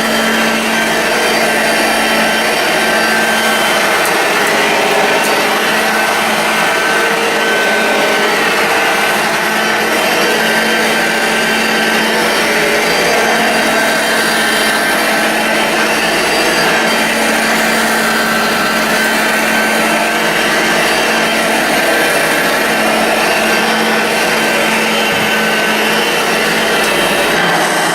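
Vintage Hoover Junior U1036 upright vacuum cleaner running steadily, a loud even motor noise with a constant hum.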